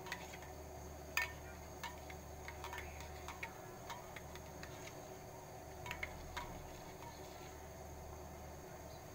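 Metal spoon stirring powdered milk and cold water in a stainless-steel bowl, giving scattered light clinks and taps against the steel at irregular intervals over a faint steady low hum.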